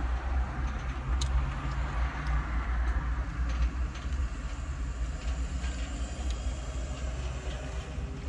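Car engine idling with a steady low hum, heard from inside the cabin, with scattered light clicks over it.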